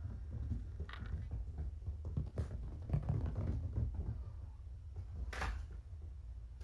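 Kittens' paws thudding on rubber floor mats as they run and play, a steady patter of soft thumps with a few sharp clicks. A short scraping rustle comes about five seconds in.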